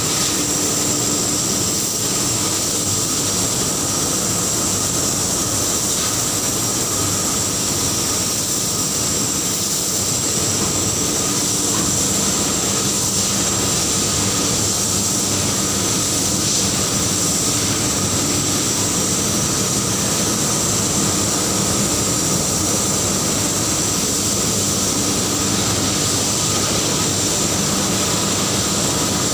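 Ferronickel smelting furnace plant running: a loud, steady industrial noise with a constant high whine, unchanging throughout.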